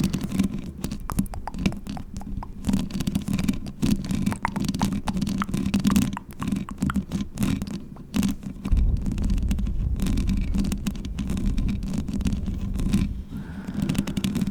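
Long fingernails scratching and rubbing right on a microphone: a dense run of small scratchy clicks over a low rumble, the rumble growing heavier about nine seconds in.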